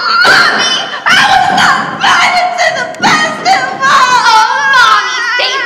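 A young woman singing loudly, in pitch-bending phrases that end on a long held note with vibrato near the end.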